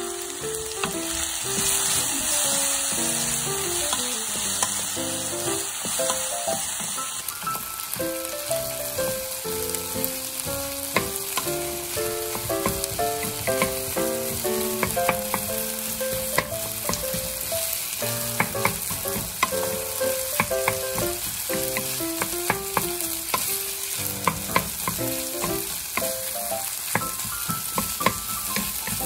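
Cabbage, zucchini and rice sizzling in a nonstick frying pan while a wooden spatula stirs and tosses them, with frequent short scrapes and taps of the spatula against the pan. A light melody plays underneath.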